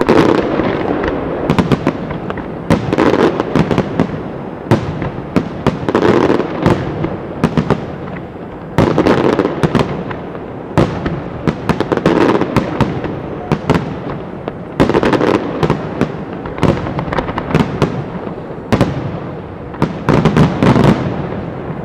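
Aerial firework shells bursting in a display: loud bangs in clusters about every three seconds, with many sharp cracks in between.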